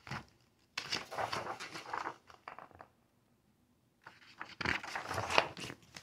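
Pages of a picture book being handled and turned: two spells of paper rustling and crinkling, the first about a second in and the second about four seconds in.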